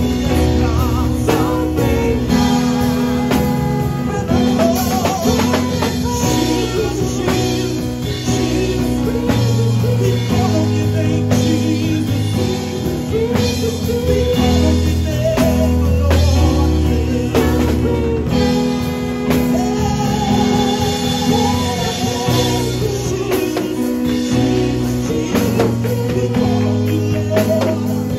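Live gospel worship music: a man singing into a microphone over a Yamaha MODX keyboard and a drum kit, with sustained bass and chord notes under the vocal line.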